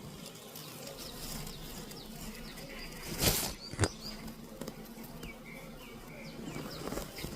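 Honeybees buzzing steadily around the hives, with short high chirps scattered through. About three seconds in come two sudden loud whooshing knocks, half a second apart.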